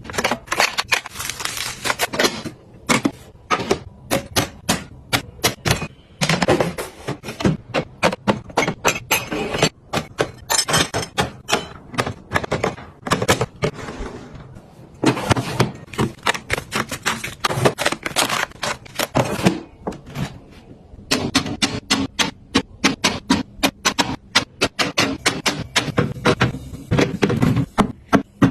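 Small hard objects being handled and set down one after another: a dense, irregular run of clicks, taps and knocks, with stretches of rustling in between.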